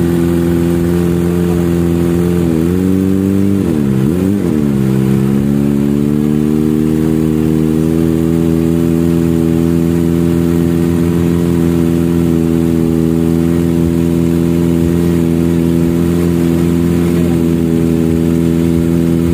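Kawasaki ZX-25R's 250 cc inline-four idling through a custom header and Akrapovic carbon slip-on muffler. A few seconds in, the idle sags twice, the second time deeper, then recovers and holds steady.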